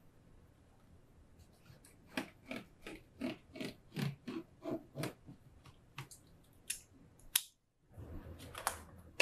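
Fabric marker scratching across fabric along a quilting ruler in a run of quick short strokes, about three a second, then a few more scratches and a sharp click.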